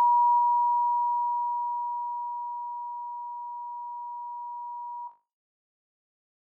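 Television bars-and-tone reference signal: a single steady pure test tone. It grows quieter over the first three seconds, then holds level and cuts off suddenly about five seconds in.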